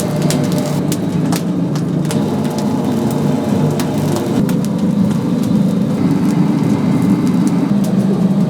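Oak-wood fire burning in a chicken-roasting oven: a steady low rumble with scattered sharp crackles and pops.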